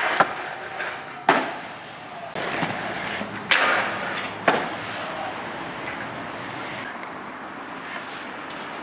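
Skateboard tricks on a metal handrail: several sharp clacks of the board striking the rail and the concrete, with grinding scrapes along the rail in the first five seconds. After that comes a steady noise of urethane wheels rolling on concrete.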